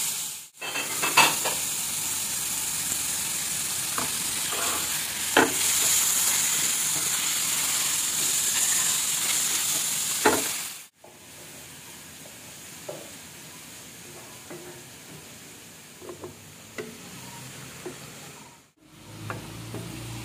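Squid pieces sizzling in hot oil in a frying pan, stirred with a wooden spatula that knocks and scrapes against the pan now and then. The sizzle is loud at first and drops abruptly to a quieter level about eleven seconds in.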